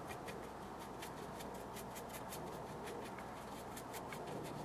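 Paintbrush dabbing and stroking on watercolour paper: a run of soft, irregular scratchy taps.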